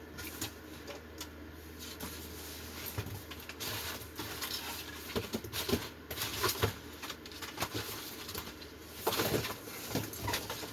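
Cardboard box and packing being handled and pulled off a new boat refrigerator: irregular scrapes, rustles and knocks.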